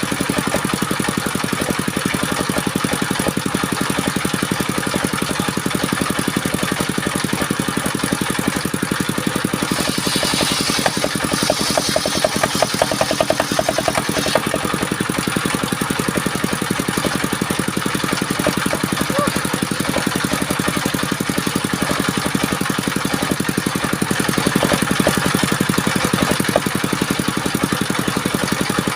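Engine-driven circular wood saw running steadily. About ten seconds in, a harsher, brighter note comes in for roughly four seconds, then it settles back to the steady running sound.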